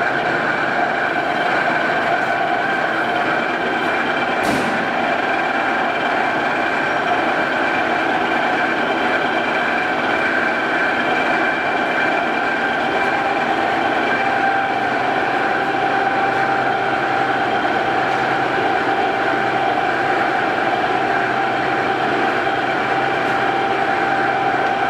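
Toolmex TUR-630A engine lathe running, a steady machine hum with a high gear whine from its drive. A single click about four and a half seconds in.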